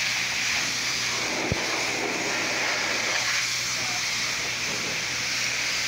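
Pressure-washer wand spraying water over a dirt track race car and its wooden trailer deck: a steady hiss of spray, with one brief low thump about a second and a half in.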